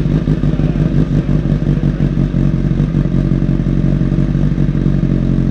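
2014 Honda CBR1000RR's inline four-cylinder engine idling steadily through a Black Widow shorty exhaust with the baffle removed.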